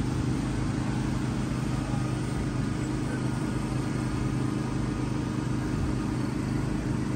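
Steady low engine hum that keeps an even pitch and level throughout.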